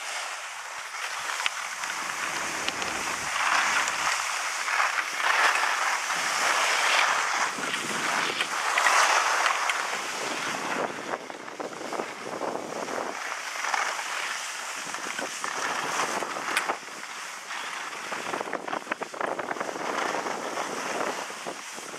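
Skis sliding and scraping over groomed snow, a rushing hiss that swells and fades with each turn, with wind buffeting the microphone.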